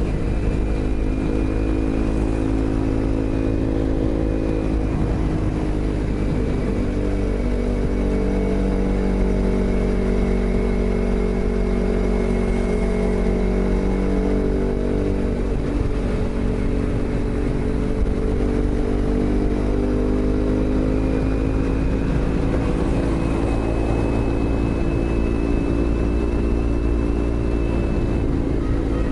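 Motorcycle engine running under way, its pitch slowly falling and rising as the road speed changes, with steady wind rush on the helmet microphone.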